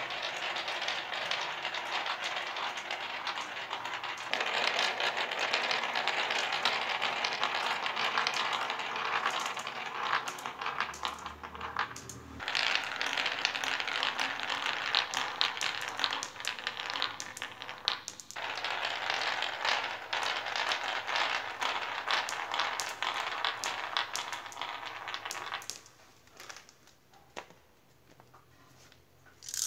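Glass marbles rolling and clattering down a wooden marble-run slope with a winding groove: a dense, continuous rattle of many small clicks as they knock along the curves. It breaks off briefly about twelve and eighteen seconds in, and dies down near the end to a few faint ticks.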